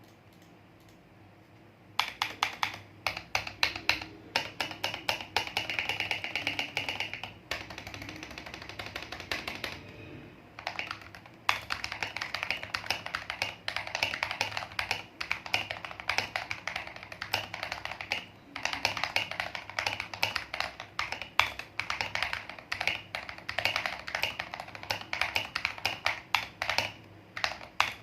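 Typing on an Akko ACR67 acrylic mechanical keyboard with an FR4 plate, Boba U4T tactile switches on the letter keys and Akko ASA-profile keycaps. Rapid runs of keystrokes start about two seconds in, broken by short pauses about a third of the way through and again past the middle.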